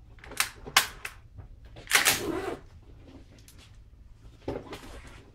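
Sharp metallic clicks and clacks of a Luvo LA-15 9×19 mm AR-style carbine being handled, its action worked as it is unloaded and shown clear: a few quick clicks in the first second, a louder clack about two seconds in, and another near the end.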